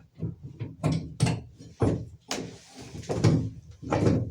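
A diverter socket knocking and clicking against a shower valve's diverter stem and the fiberglass around it as it is worked on, with a brief scrape a little past halfway.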